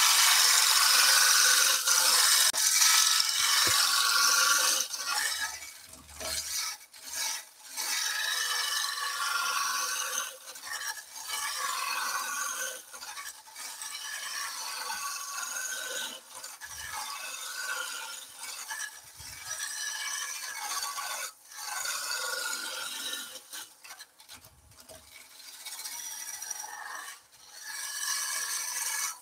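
Roughing gouge cutting a spinning wooden staircase spindle on a wood lathe. The rushing noise of the cut comes and goes over a series of passes with short breaks, loudest in the first five seconds.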